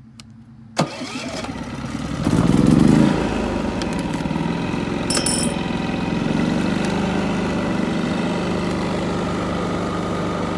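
Westinghouse iGen4500 inverter generator's single-cylinder four-stroke engine restarting: a sharp click, then it catches about two seconds in, runs up loudly for about a second and settles into a steady run.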